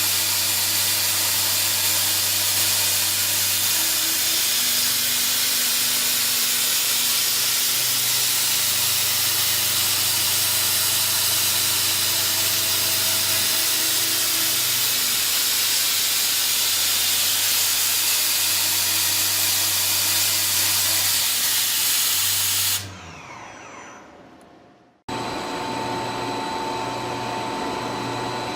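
An industrial cutting machine runs with a loud, steady hiss over a low hum. About 23 seconds in, the hiss drops sharply and fades to silence. A different machine then starts, running steadily with a high whine.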